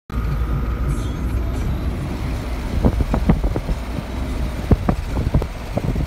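Vehicle engine and road rumble heard from inside the moving vehicle. From about halfway through there are a series of sharp rattling knocks, like the body jolting over bumps in the road.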